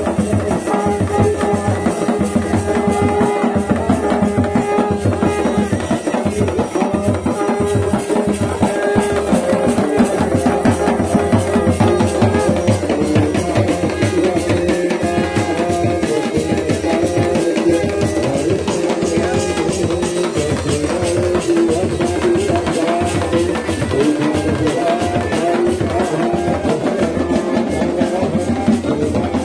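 Kumaoni chholiya band music: dhol and damau drums beat a fast steady rhythm under the held melody and drone of a mashakbeen (bagpipe).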